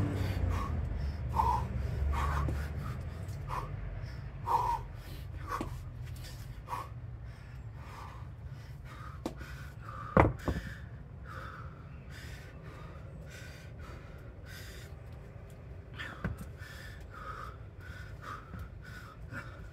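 A person breathing hard in repeated short gasps, out of breath from a hard kettlebell and bodyweight circuit. A single sharp knock about ten seconds in.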